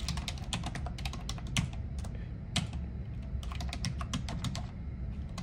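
Typing on a computer keyboard: a quick, irregular run of key clicks, over a steady low hum.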